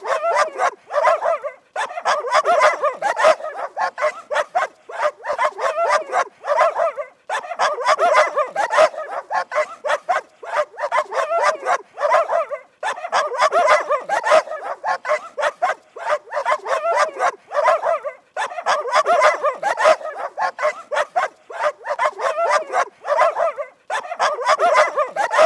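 Dogs barking angrily in rapid, overlapping barks that run almost without pause. There is a brief break about every five and a half seconds, as if the same stretch of barking repeats.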